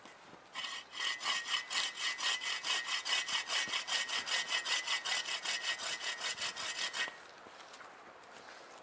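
Sven Saw folding bow saw cutting through a branch in fast, even back-and-forth strokes. The sawing starts about half a second in and stops suddenly about seven seconds in.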